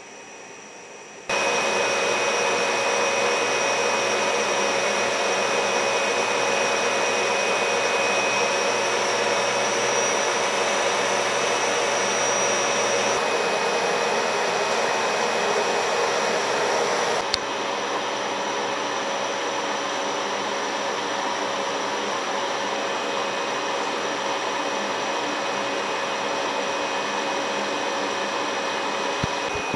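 EF65 electric locomotive standing with its cooling blowers running: a loud, steady whoosh with a few thin whining tones. It starts suddenly about a second in and drops a little past the halfway point.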